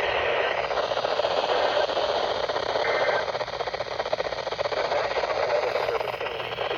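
Weather radio receiver playing steady static hiss with no voice or alert tone: dead air on the weather broadcast.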